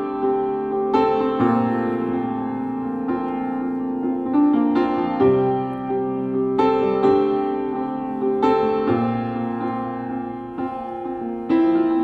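Background music: piano playing slow, sustained chords, with new notes struck every second or two.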